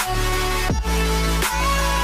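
Electronic background music with a heavy bass line and held synth tones, its beat made of deep hits that drop in pitch, about one every three-quarters of a second.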